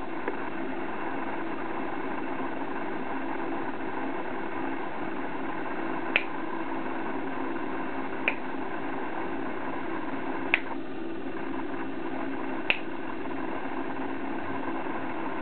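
Four short, sharp clicks, evenly spaced about two seconds apart, over a steady hiss of room noise.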